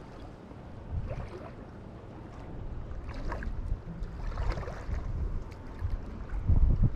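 Wind rumbling on the microphone over small water sounds lapping at the lake shore, with a few brief splashy rustles.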